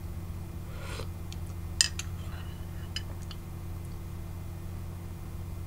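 Metal spoon clinking against a ceramic mug: one sharp clink a little under two seconds in, with a few lighter taps around it, over a steady low hum.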